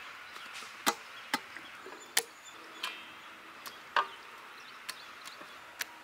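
Irregular sharp taps and clicks, about eight in a few seconds, as pieces of cut fish are dropped into a stainless steel bowl and the bowl is handled.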